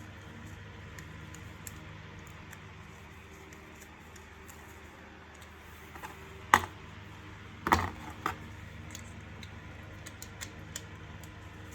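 Light clicks and taps of plastic parts and small tools being handled during a vacuum cleaner repair, with three sharper knocks between about six and a half and eight seconds in, over a steady low hum.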